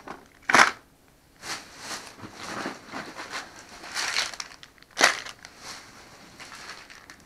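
Plastic candy wrappers and packaging crinkling and rustling as they are handled, in irregular bursts; the loudest comes about half a second in.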